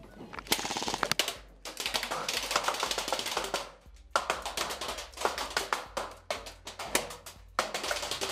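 Airsoft guns firing in several rapid full-auto bursts, strings of fast clicks that stop and start, over background music with a steady bass line.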